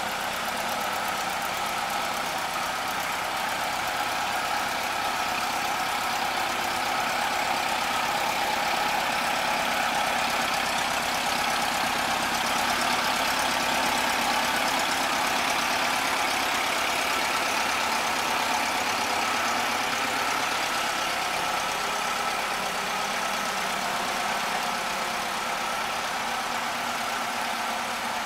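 A 1969 Volkswagen Type 3's air-cooled flat-four engine idling steadily.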